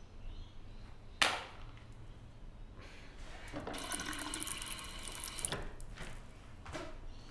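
A bathroom sink tap runs for about two seconds, starting about three and a half seconds in, as hands are rinsed, then is shut off. Earlier, about a second in, there is one sharp knock as a phone is put down on the counter, the loudest sound here.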